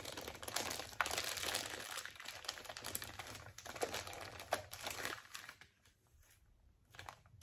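Toy packaging crinkling and crackling as it is torn open by hand, dense for about five seconds, then dying down to a few scattered clicks near the end.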